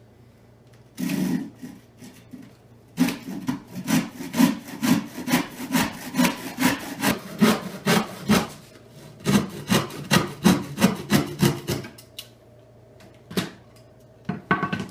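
Hand saw crosscutting a wooden board: one stroke about a second in, then quick, even rasping strokes, about two to three a second, with a short break partway before they resume and stop about twelve seconds in. A few light knocks near the end.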